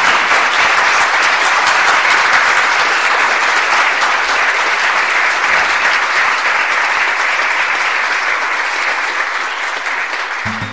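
Audience applause, loud and steady, thinning slightly near the end. A guitar starts playing just at the close.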